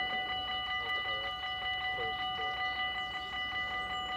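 Dutch level-crossing warning bell ringing in quick, even strokes, about four a second, while the barriers are down: the signal that a train is approaching.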